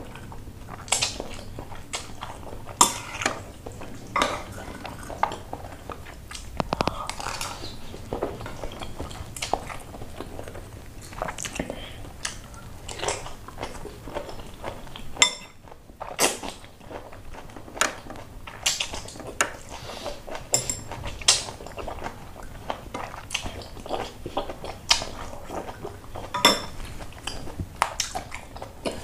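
Close-up mukbang eating sounds: instant noodles in broth slurped off a fork, chewing, and a metal fork and spoon clinking against a ceramic bowl. There is a brief break about halfway.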